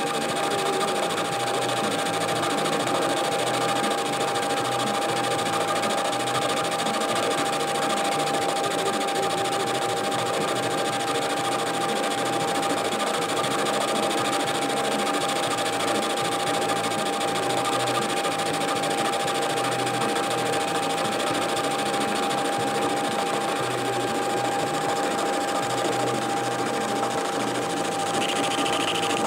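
Metal lathe running steadily with a constant whine while its cutting tool turns down the thin centre of a connecting rod. The cut is interrupted at first, the tool striking the corners of the flat bar as it takes it down to round.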